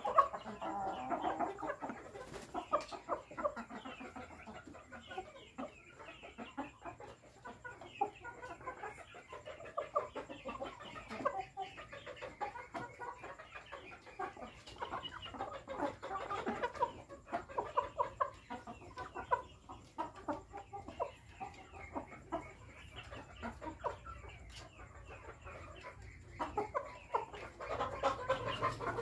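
Several chickens clucking softly and continuously while they eat, with many quick taps of beaks pecking feed from a wooden trough.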